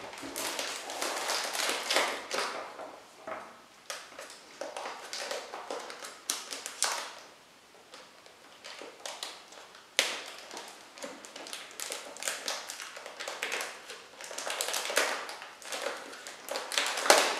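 Thin clear plastic dust cover crinkling and rustling as it is peeled off a keyboard by hand, in irregular bursts with a few light taps and one sharper knock about ten seconds in.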